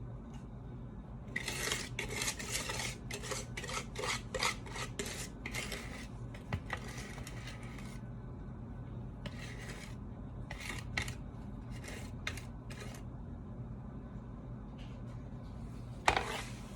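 A utensil scraping cake batter against a mixing bowl or cake pan in quick repeated strokes, then a few slower, spaced scrapes.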